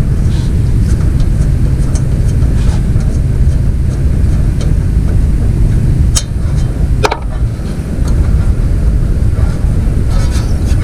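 A steady low rumble, with two sharp metallic clicks about six and seven seconds in, as a tool pries at a small metal bracket by a lawn mower's carburetor.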